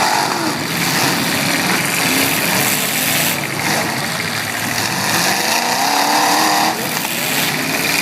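Demolition derby cars' engines revving, several at once over a dense din. One engine climbs steadily in pitch from about five seconds in and drops off abruptly near seven seconds.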